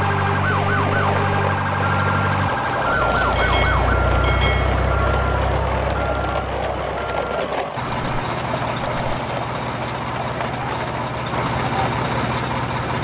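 Truck sound effects: a steady engine drone with siren-like wails and short repeated beeping tones over it. The drone changes twice, about two and a half seconds in and again near the middle.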